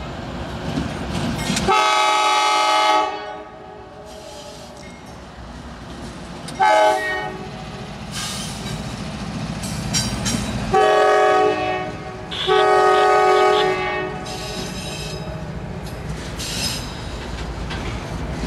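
A CSX diesel freight locomotive's air horn blowing four blasts: one long, one short, then two long close together. Under the horn, the locomotives and autorack cars rumble steadily as they pass.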